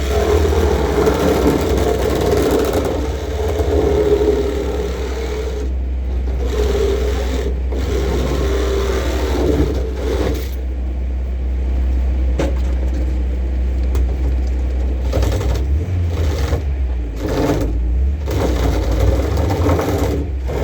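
Motor vehicle running on the road: a steady low engine drone with road noise and brief drops in level several times.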